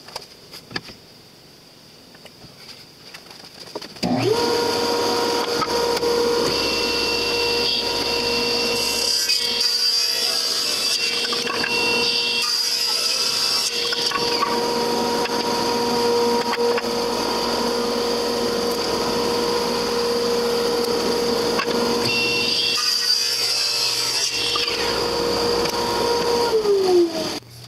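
Table saw motor starting about four seconds in and running at a steady pitch. The blade cuts through a maple board twice, each cut adding several seconds of harsher noise. Near the end the saw is switched off and spins down with a falling pitch.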